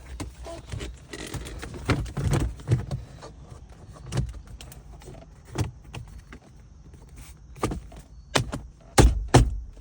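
Plastic interior trim pieces of a 2016 Mazda CX-9's center console being handled and snapped into place: a string of sharp clicks and knocks, the two loudest close together near the end.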